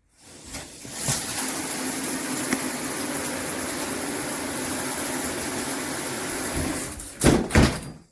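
Shower head spraying water in a steady rushing hiss, with two loud bumps near the end.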